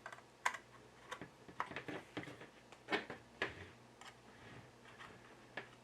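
Irregular small clicks and knocks of 5-pin DIN MIDI cable plugs being handled and pushed into the jacks of a cable tester.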